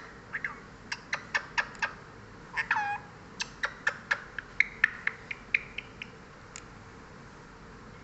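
A parrot making a quick run of short, sharp chirps and clicks, about three or four a second, with one longer squawk that falls in pitch about three seconds in; it goes quiet after about six seconds.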